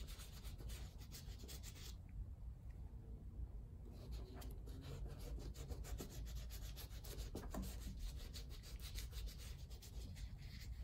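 Gloved hands rubbing melted Huberd's shoe grease into a hiking boot: a run of faint rubbing strokes that ease off for a couple of seconds about two seconds in.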